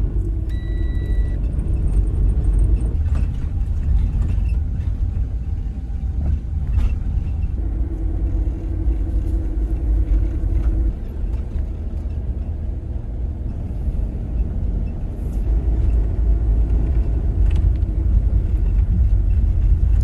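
Steady low rumble of a car's engine and road noise heard from inside the cabin, with a short high beep about half a second in.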